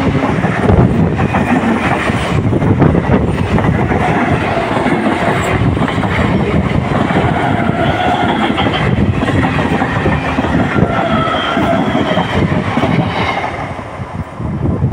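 An Indian electric multiple unit (EMU) local train passing at close range: a steady, loud clatter and rumble of its wheels and bogies on the track, with faint high whining tones over it. The sound drops away about a second before the end.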